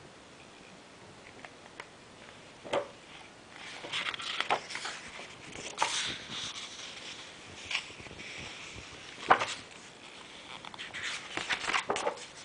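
Pages of an art book being turned by hand: irregular paper rustling and sliding, with a few sharp flicks and taps as pages flip over.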